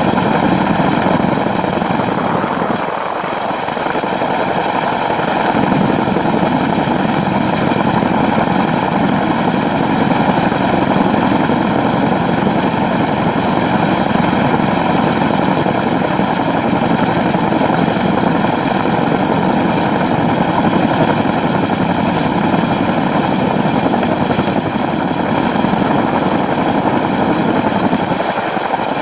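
CH-47D Chinook's tandem rotors and twin turboshaft engines running, heard from a mount on top of the fuselage. A dense, steady rotor noise with several high, steady turbine whine tones layered over it. The low rumble drops away briefly a few seconds in.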